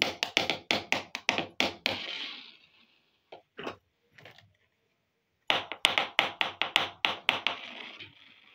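Small plastic toy plate tapped quickly, a run of sharp plastic clicks about six a second lasting about two seconds. A few single taps follow, then a second run of the same clicks about halfway through.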